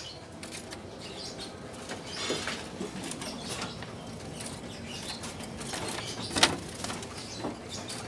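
Caged songbirds fluttering and hopping against their cage bars, with scattered short chirps and calls and a sharp knock about six and a half seconds in.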